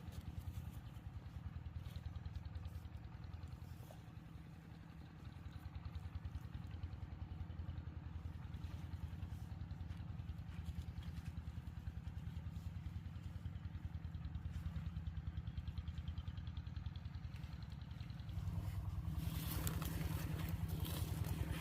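A small engine running steadily, growing louder about three-quarters of the way through.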